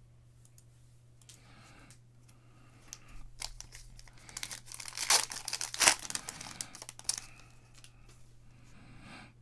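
Wrapper of a football trading-card pack being torn open and crinkled by hand, loudest about halfway through with a sharp rip. Quieter rustling follows as the cards are handled.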